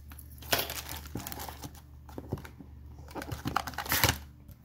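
Clear plastic parts bags crinkling and rustling as a hand rummages through a packed cardboard box, with scattered clicks and knocks. It is loudest about half a second in and again just before the end.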